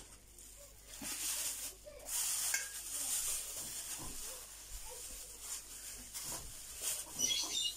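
Thin plastic bag crinkling and rustling as hands fold and twist it shut. It is loudest from about a second in to about four seconds, and again briefly near the end.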